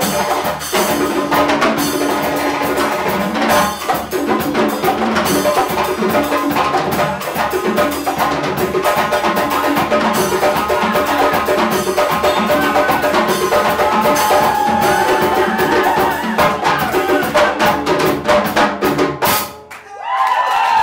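Live percussion music: hand drums and a drum kit with cymbals playing a dense, driving rhythm. Near the end the music stops abruptly and applause with a cheer begins.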